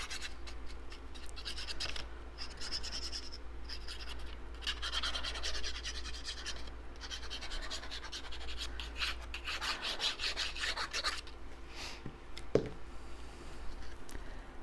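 Cardstock being handled: repeated scratching and rubbing of paper against paper and the work surface, with one sharp click about twelve and a half seconds in.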